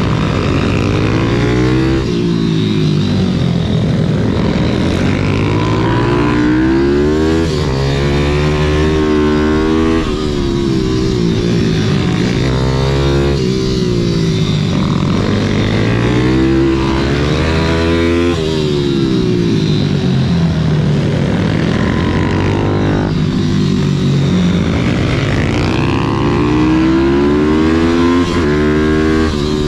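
YCF SM 190 Daytona pit bike's single-cylinder four-stroke engine at racing revs, picked up by a camera on the bike. The engine note climbs and then drops back every few seconds as the rider accelerates out of corners and shuts off or shifts for the next.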